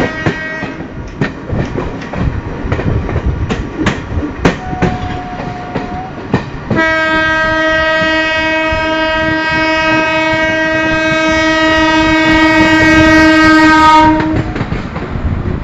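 Train wheels knocking over rail joints and points, then an electric locomotive horn sounding one long steady blast of about eight seconds that grows louder before cutting off.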